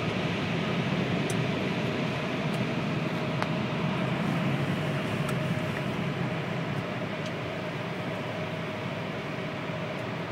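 Steady rushing hum heard from inside a car, with a faint steady whine running through it, easing off a little about two-thirds of the way in.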